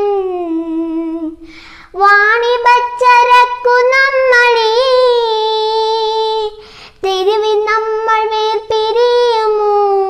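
A young girl singing a Malayalam poem unaccompanied, holding long drawn-out notes with vibrato in three phrases, breathing in between about one and a half seconds in and again near seven seconds.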